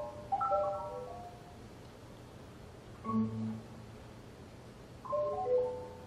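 Solo marimba struck with mallets: a quick run of notes falling in pitch just after the start, a single low note with a higher note above it about three seconds in, and another short flurry of notes near the end. Each note rings briefly, with quiet between the phrases.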